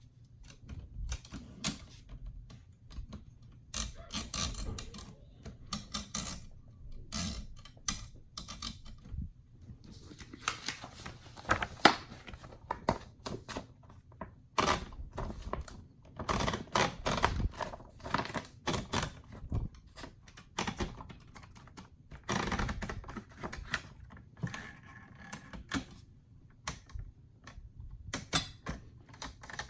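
1962 Royal Signet manual typewriter being typed on: runs of irregular keystrokes with the typebars clacking against the platen, broken by short pauses.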